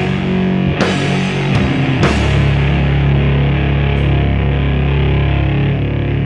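Loud live heavy rock band with distorted electric guitars and drums. There are two hard accented hits with cymbal crashes about one and two seconds in, then the distorted guitars hold a low droning chord.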